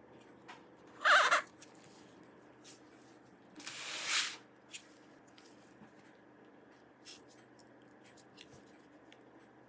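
Quiet handling sounds of gloved hands working inside an open laptop: a few light clicks and taps, a brief squeaky rub about a second in, and a short scraping rustle around four seconds in.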